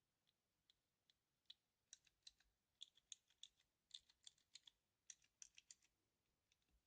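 Mechanical keyboard switches, newly fitted Cherry MX switches, pressed over and over to compare their feel: faint, quick clicks in irregular runs. One switch is much heavier to press than the other.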